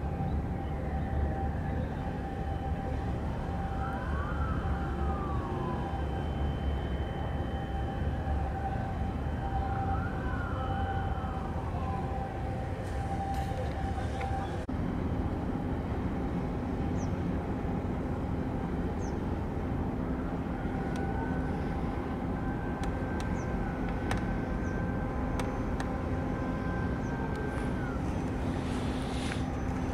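Steady low engine rumble, with a faint siren wailing up and down a few times in the first half.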